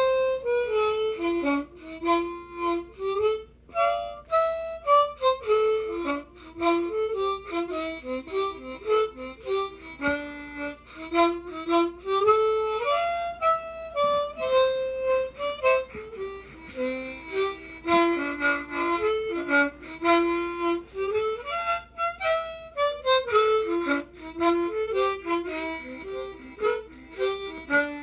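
A large old harmonica with extra low notes plays a lively traditional dance tune solo, in quick runs of single notes and chords, starting suddenly at the outset.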